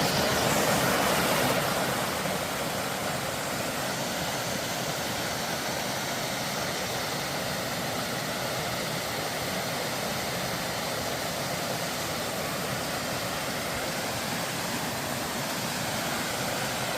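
Mountain stream water pouring down a small waterfall into a rock pool: a steady rushing, a little louder for the first two seconds.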